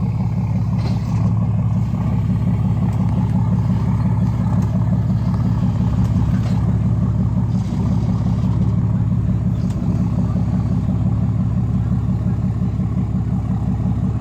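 An engine running steadily at a constant low speed: a loud, even, low drone with a fine regular pulse and no change in pitch.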